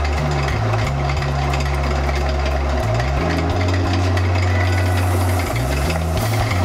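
Background music with a deep bass line that steps between notes every second or so, over a busy, dense beat; a brighter hiss comes in about two-thirds of the way through.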